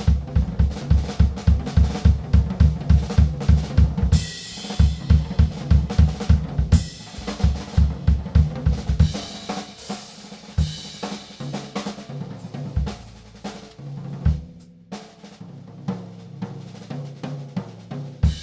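1960s Gretsch Name Band drum kit played solo. A driving pattern of low drum strokes runs at about four a second, with cymbal crashes around four and seven seconds in. After that the playing turns lighter and busier, with a short break near the end.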